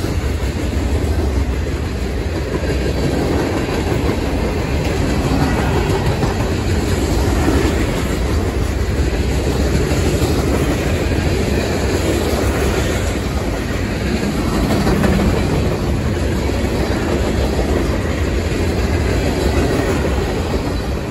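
Boxcars of a CSX local freight train passing close by at speed: a loud, steady rumble of steel wheels rolling on the rails.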